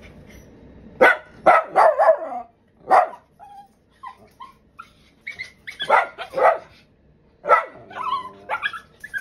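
Small dog barking in short, sharp barks: a quick run of several about a second in, a single one near three seconds, then more runs around six and around eight seconds.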